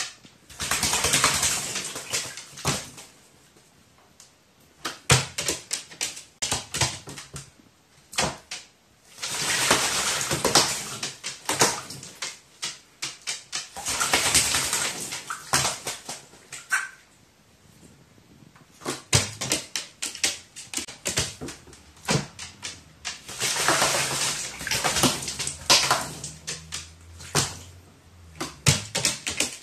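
Pet crow bathing in water, splashing in repeated bouts of a few seconds with quieter gaps between. About halfway through it gives a short sneeze, a 'hyo!', from water getting into its nose.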